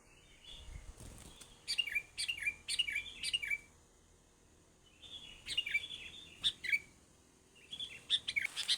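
A songbird calling in three bursts of quick chirps, about three short falling notes a second, with a pause between bursts.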